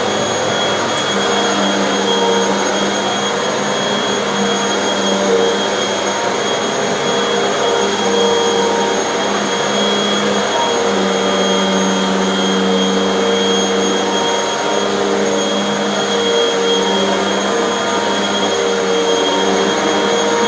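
Hoover bagless upright vacuum cleaner running on carpet, a steady motor hum and whine that wavers a little as it is worked back and forth.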